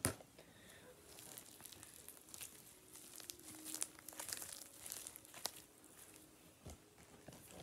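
Foam bead slime being squeezed and squished in the hands, the beads giving a faint crackling. It opens with a sharp knock.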